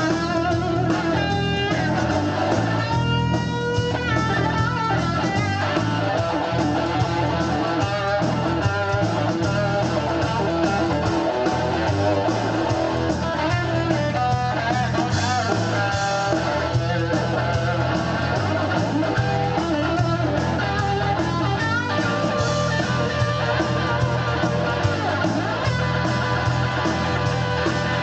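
Blues-rock band playing an instrumental break, with an electric guitar carrying the lead over bass and drums.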